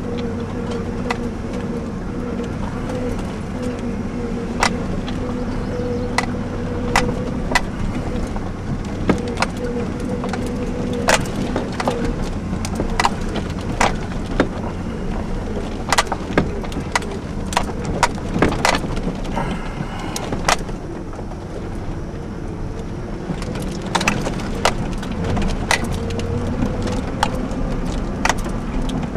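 2002 GMC Sonoma ZR2's 4.3-litre V6 running steadily, heard from inside the cab, with frequent sharp knocks and rattles as the truck jolts over a rough dirt trail.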